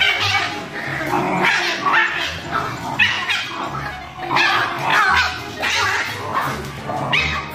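Shiba Inu dogs yipping and barking repeatedly as they play-fight, over background music with a steady bass line.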